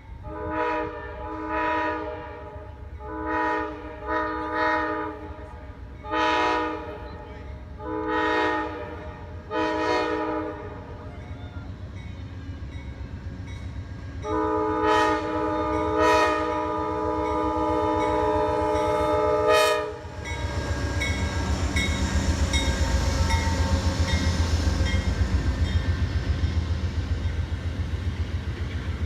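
A locomotive air horn sounding several notes at once blows about seven short blasts, mostly in pairs, then one long blast of about five seconds. After the long blast the train rolls past, its wheels clacking in a rapid steady rhythm under a loud rumble.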